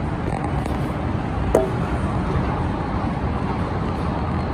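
Steady running noise of an Otis 2000 travelator at its landing, with a single sharp click about a second and a half in.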